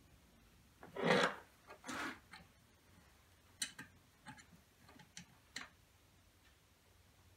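Small metal hand tool working on the steel parts of a home-built compressed-air engine while it is being unbolted: two short scrapes about a second and two seconds in, then a handful of light, irregular metallic ticks.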